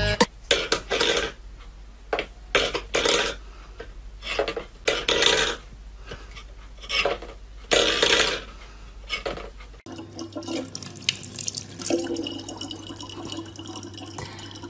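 Metal bowls knocking and clattering in a run of short irregular knocks. About ten seconds in, a thin steady stream of water from a faucet running into a plastic water bottle.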